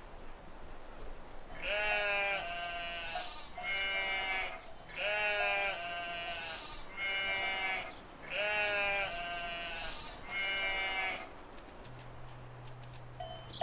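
Sheep bleating over and over, a run of wavering bleats repeating every second or so for about nine seconds.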